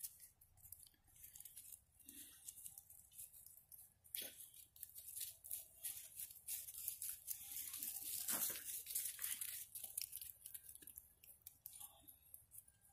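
Footsteps rustling and crunching through dry fallen leaves on grass, a run of faint crackles that grows louder in the middle and fades again.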